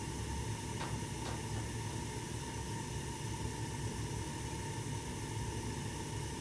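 1988 Snyder General gas furnace running: a steady low hum with an airy hiss and a faint constant whine, and two faint clicks about a second in.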